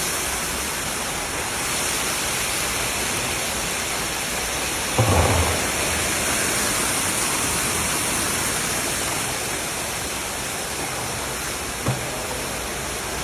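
Giant plov cauldron (kazan) of meat frying in bubbling oil, making a steady rain-like sizzling hiss as julienned carrots are tipped in. There is a dull thump about five seconds in.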